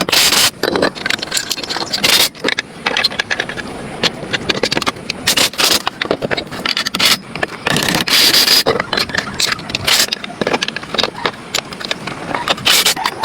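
Irregular scraping strokes on a hard surface, some short and some lasting up to about a second, coming in an uneven rhythm.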